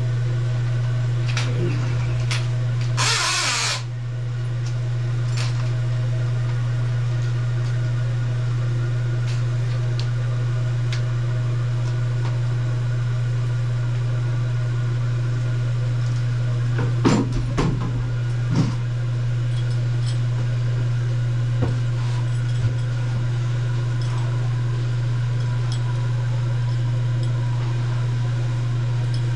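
A steady, loud, low mechanical hum, with a short hiss about three seconds in and a few knocks near the middle.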